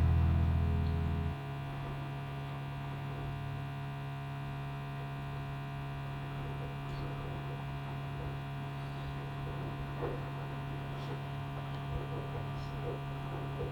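Steady electrical hum: a low drone with a stack of steady higher tones, with a few faint clicks.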